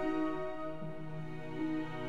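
Slow, sad orchestral film score with long held chords, moving to a new chord near the end.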